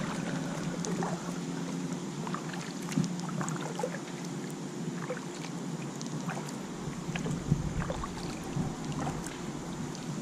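Kayak being paddled on calm water: paddle strokes with small splashes and water drips against the hull. A steady low hum runs underneath.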